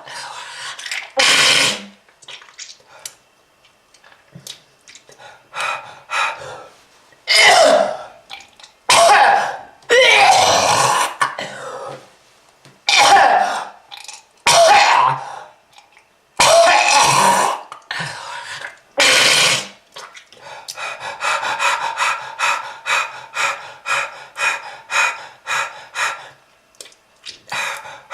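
A person coughing hard and clearing their throat: a series of long, harsh coughing fits, then about two-thirds of the way through a run of short, quick coughs at about three a second. The cough is presented as the sign of a smoker's lung disease.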